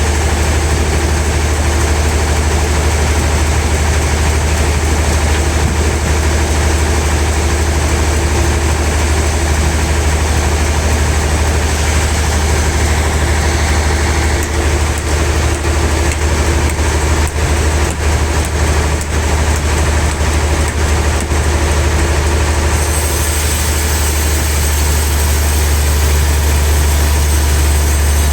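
Heavy sawmill machinery running with a steady low hum and engine-like noise. A brighter hiss joins about three-quarters of the way through.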